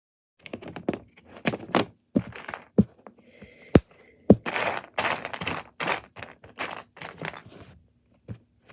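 Plastic Mathlink cubes being handled and snapped together: an irregular run of sharp clicks and knocks with brief rustling between them.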